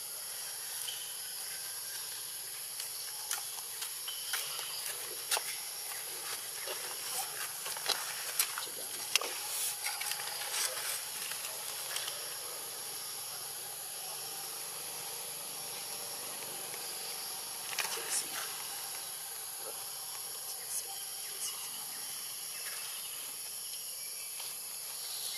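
Steady high-pitched insect drone, with scattered short clicks and rustles, most of them in the first half and a small cluster about two-thirds through.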